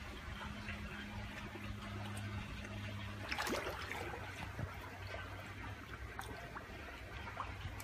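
Steady trickle of water at a garden koi pond, with a low hum during the first three seconds and a short burst of rustling clicks a little over three seconds in.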